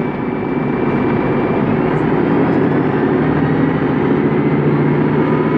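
Volvo B10M bus's six-cylinder diesel engine running under way, heard from inside the passenger cabin as a steady drone that grows a little louder in the first second, with a faint rising whine from about two seconds in.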